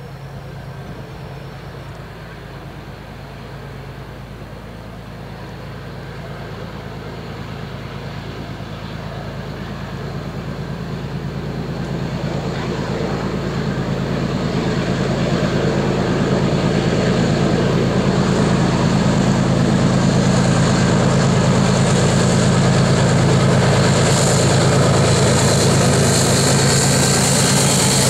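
BNSF diesel-electric freight locomotives hauling a long container train, their engines a steady low drone that grows louder as they approach and levels off at its loudest over the last several seconds as the lead units pass close by.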